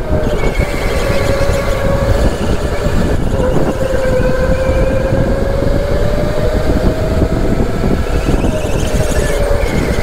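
Go-kart running at speed, heard from on board: a steady whine that dips and then climbs gently in pitch as the kart slows and gathers speed, over a rough rumble.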